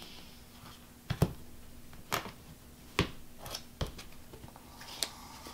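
Tarot card piles being picked up and squared into one deck on a cloth-covered table: about half a dozen sharp taps and clacks of the cards against the table, the loudest a little over a second in and at about three seconds.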